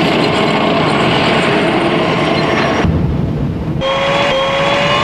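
M1 Abrams tank on the move: heavy, steady track and engine noise. From about four seconds in, a whine rises slowly in pitch over it, the sound of the tank's gas-turbine engine.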